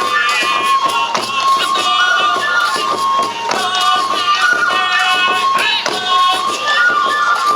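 Traditional Japanese shishi-odori (deer dance) music: a high bamboo flute melody over regular drum beats.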